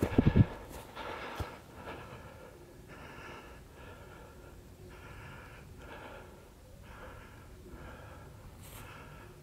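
A hiker breathing heavily and evenly while walking uphill, about one breath a second. A few sharp thumps in the first half-second are the loudest sounds.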